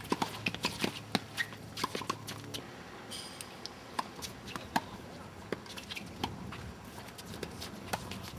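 Tennis balls being struck and bouncing during a doubles rally on hard courts: a run of sharp, irregular pops of ball off racket strings and off the court surface, some from neighbouring courts.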